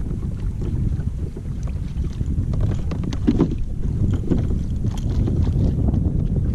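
Wind rumbling on the microphone over water moving along a kayak's hull, with faint scattered clicks and a dull knock about three seconds in.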